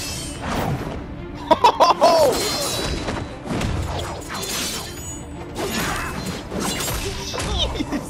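Animated fight-scene soundtrack: music under a run of sword clashes and impact effects from flying blades, with a quick burst of sharp hits about one and a half to two seconds in.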